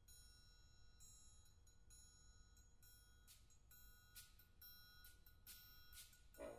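Near silence, with only faint steady high tones and a few soft hissing swells in the second half.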